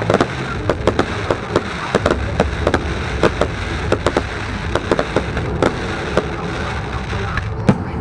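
Aerial fireworks going off in quick, irregular succession, a few sharp bangs a second over a steady background noise, with the loudest bang near the end.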